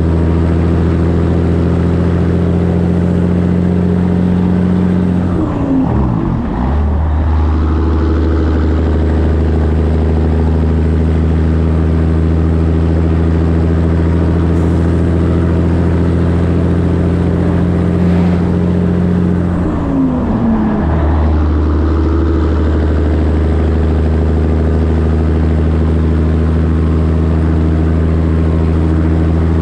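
Diesel engine of a 1984 Peterbilt 362 cab-over truck running steadily under load, heard from the trailer behind its twin exhaust stacks, over road and wind noise. Twice, about six seconds in and again about twenty seconds in, the engine note drops away and then comes back up.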